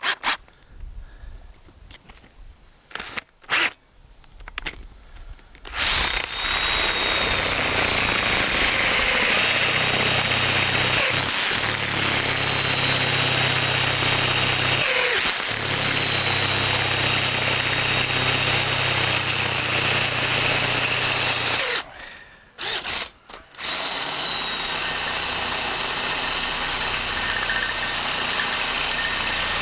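Power drill boring out a broken stud in a tractor's final drive casting, deepening the hole. A few light knocks come first, then the drill runs steadily with a faint whine for about fifteen seconds, stops briefly, and starts again.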